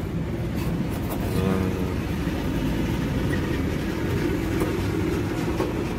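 Steady low rumble of a motor vehicle engine running in the background, with a few light clicks early on.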